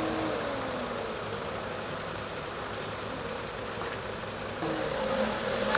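Vehicles driving along a flooded road: an engine note falls in pitch just after the start as one vehicle moves off, and another vehicle comes in louder about four and a half seconds in.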